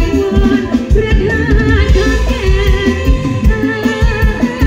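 A woman singing into a microphone over a live band, with a drum kit keeping a steady beat and keyboard accompaniment.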